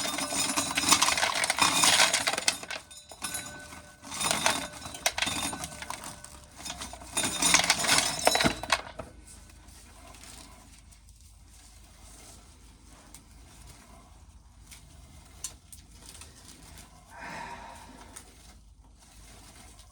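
Corn sheller stripping an ear of corn, the kernels rattling and clinking off in several surges of clatter over the first nine seconds or so, then only faint sounds.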